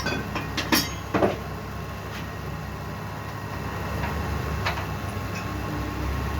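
An engine running with a steady low hum, with a few sharp metallic knocks in the first second and a half.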